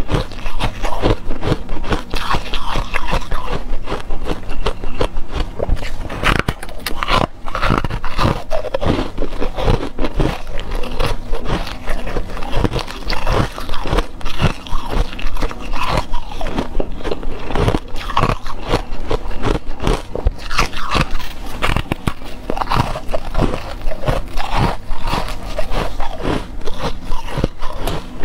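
Blocks of frozen ice being bitten and chewed close to a lapel microphone: continuous crisp crunching, with many sharp snaps and crackles as pieces break off.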